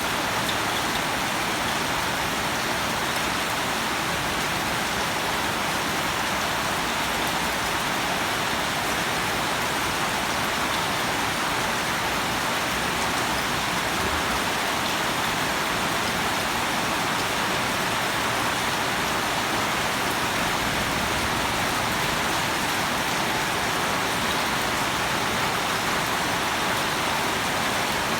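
Steady rain falling and pattering on surfaces, an even hiss that holds at one level throughout.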